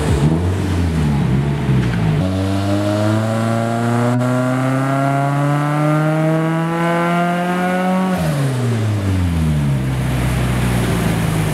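Turbocharged FA20 flat-four of a Scion FR-S with a Greddy turbo kit, making a pull under load on a hub dyno. The revs fall over the first couple of seconds, then climb steadily for about six seconds, and drop away quickly about eight seconds in as the throttle is released, settling at a lower steady speed.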